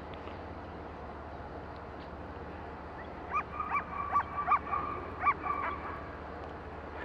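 Irish setter yipping and whining in excitement while chasing swallows: after about three seconds of quiet background, a quick run of about ten short, high yelps over a thin held whine, lasting about three seconds.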